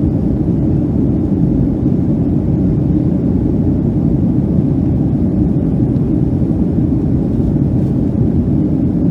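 Boeing 757-200 airliner heard from inside the passenger cabin after takeoff: a steady, even rumble of engine and airflow noise.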